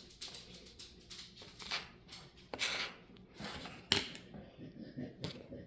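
Kinetic sand being worked by hand: soft scraping and crumbling swishes with a few sharp clicks, the sharpest about four seconds in.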